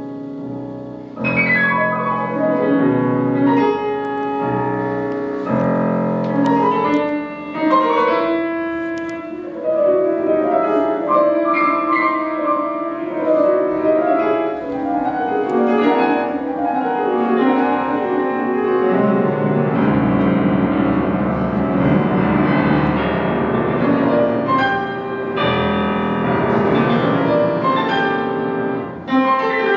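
Steinway concert grand piano played solo: a classical piece of full chords and running passages. There is a short break near the end, then a loud chord.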